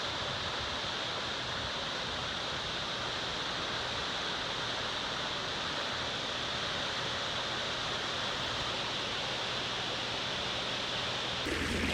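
Steady rush of flowing water, an even hiss without separate splashes or drips. It cuts off abruptly near the end.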